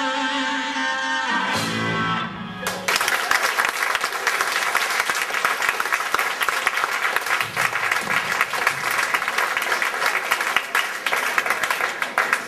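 Electric guitars and bass of a rock band ring out on a final chord that dies away about two seconds in. Then an audience applauds steadily.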